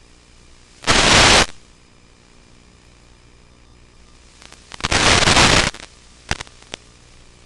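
Bursts of radio static on the audio of an analog FPV video downlink: a loud half-second hiss about a second in, a longer one about five seconds in, then a few short crackles, over a faint steady hiss.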